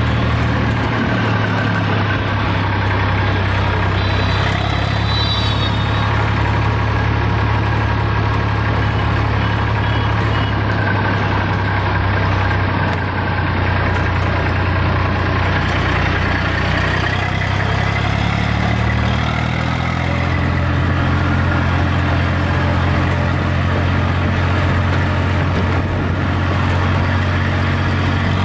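Eicher 480 tractor's diesel engine running steadily while driving on the road, heard close to its upright exhaust. The engine note rises a little about two-thirds of the way through.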